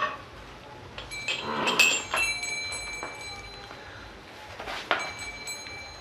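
Scuffling and a few light clinks as a Murrah buffalo's head is gripped to open her mouth, with sharp knocks about a second and a half in and again near the end.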